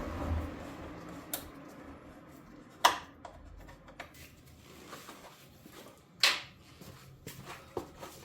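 Hard objects being handled: a few scattered clicks and knocks, the two loudest about three and six seconds in, after a brief fading rustle at the start.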